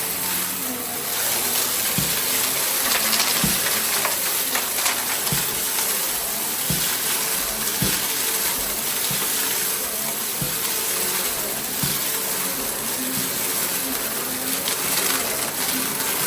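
Goodmans TurboMax vacuum cleaner running: a steady rush of suction air with a high motor whine, and a low knock about every second and a half.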